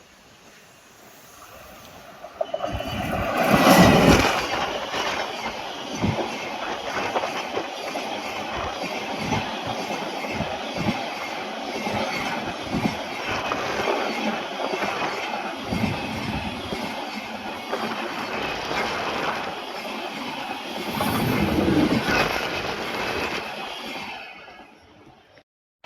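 A train passing close by: it arrives loudly about four seconds in, then its cars run past with a steady rush and repeated clicks of wheels over rail joints, and it fades away near the end.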